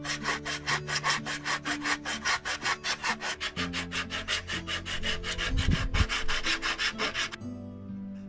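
Hand sanding of a laser-cut wooden kit part with a sanding block: quick back-and-forth rubbing strokes, about six a second, stopping about seven seconds in.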